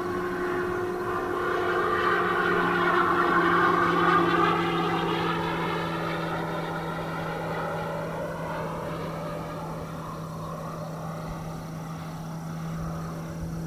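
Electric RC P-47 model airplane flying past, its 24x12 propeller driven by a Rimfire 65cc-class electric motor. The sound peaks about three to four seconds in, bends in pitch as the plane passes, then fades as it flies away over a steady low hum.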